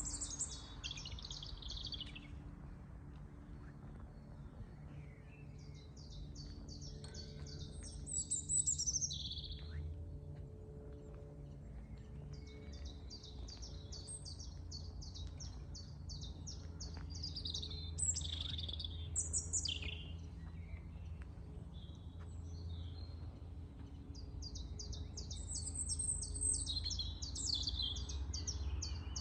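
Birds singing outdoors: repeated rapid high trills and chirps, each a second or two long, coming again every few seconds, over a steady low hum.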